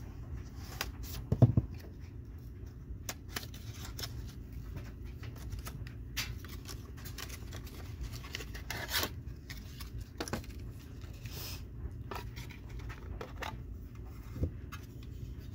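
Cardboard box of a diecast model truck being slit open with a folding knife, then its clear plastic display case handled and worked off its plastic base: scattered scrapes, rustles and small plastic clicks, with one heavier thump about a second and a half in.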